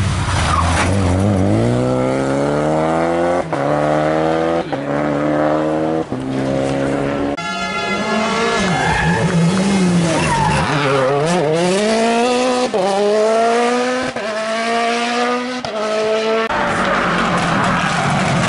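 Rally car engines accelerating hard out of a corner, the pitch climbing and dropping sharply at each upshift: about four quick upshifts, a short crackle, then a second run up through the gears the same way. Near the end a rougher, noisier engine and tyre sound takes over as a Subaru Impreza comes through.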